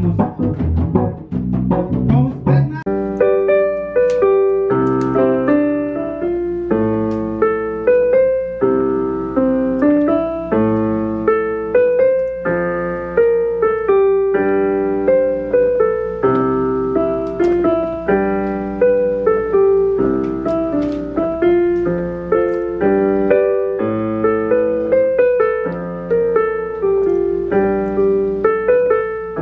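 A band with electric bass, electric guitar and hand drums playing for about the first two and a half seconds, then solo piano on an electronic keyboard: a melody of single notes over lower chords at an even pace.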